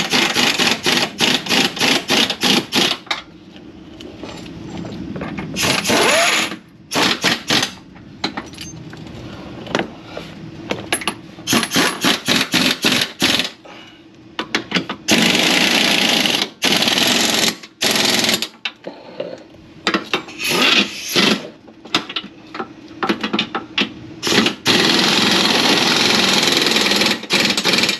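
Bolts on the underside of an Audi A4 being tightened: quick clicking for the first few seconds, then a power tool running in repeated bursts of one to three seconds, hammering as it drives the bolts home.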